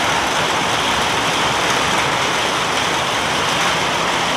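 Heavy rain falling, a steady loud hiss.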